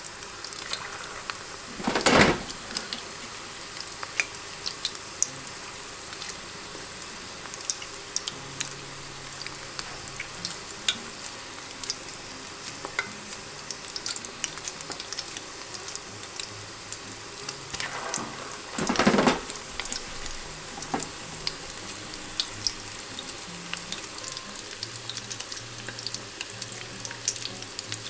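Chicken meatballs (tsukune) frying in hot fat: a steady sizzle full of small crackles. A louder rush of sound comes about two seconds in and again about nineteen seconds in.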